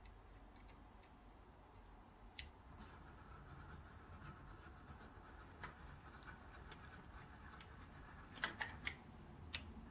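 Hobby servo motors of a 3D-printed four-track crawler whirring faintly as its legs fold it down from high to low stance, with sharp plastic clicks scattered through, several in quick succession near the end.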